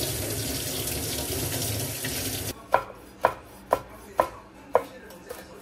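Kitchen tap running as chili peppers are rinsed under it into a stainless steel sink, cutting off suddenly about halfway through. Then a knife chopping a red chili on a wooden cutting board: five sharp chops, about two a second.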